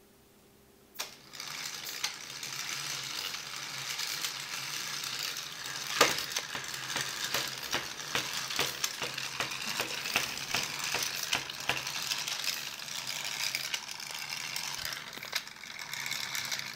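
Lego pneumatic engine running on compressed air: a steady hiss of escaping air with irregular clicking and rattling of its plastic parts. The air comes on about a second in and cuts off at the end.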